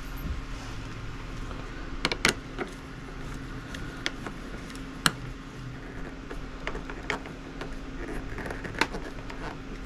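Scattered light clicks and taps of hands fitting a clear plastic wind deflector to a motorcycle fairing with a small bolt, nut and washer, over a steady low hum.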